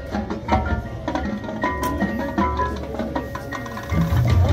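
High school marching band playing its field show: a lighter passage carried by struck mallet percussion from the front ensemble over a low band sound, growing louder near the end.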